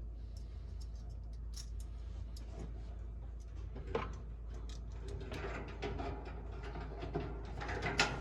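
Small clicks and scrapes of a screw being set into the dryer's sheet-metal housing by hand, a sharper click about four seconds in and a busier run of clicking near the end, over a steady low hum.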